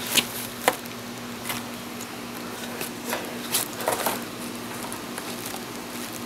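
Plastic air-pillow packing in a cardboard box crinkling in scattered short crackles as an animal moves about inside it, over a faint steady hum.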